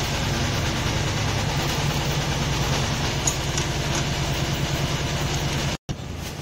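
A small engine running steadily at idle in the background, with an even pulsing beat, and a single light click a little past three seconds in.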